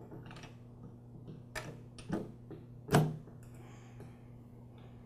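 A few light metal clicks and knocks as an air compressor's valve head and valve plate assembly, bolts pushed through it, is set down and seated onto the pump cylinder; the loudest knock comes about three seconds in.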